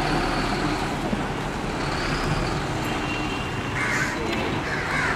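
Steady low rumble of road-vehicle engines and traffic noise, with a few short gliding high sounds about four seconds in.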